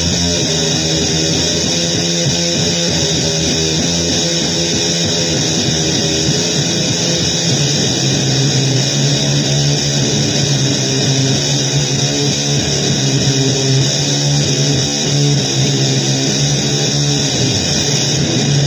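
Distorted electric guitar music in a noisy blues style, a dense unbroken wall of sound over a steady low bass line.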